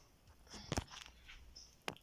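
Two sharp clicks or knocks, about a second apart, with light rustling between them, as of small objects being handled and set down.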